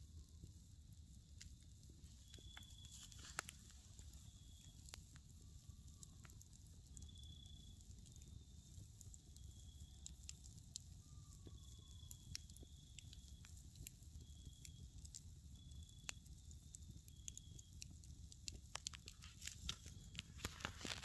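Wood campfire crackling faintly, with scattered sharp pops that come thicker near the end as a burst of sparks flies up.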